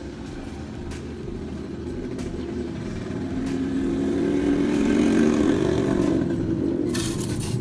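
Playback through a Kevler GX-4000 amplifier and its speakers: a low drone that grows steadily louder as the master volume is turned up, with a short burst of noise near the end.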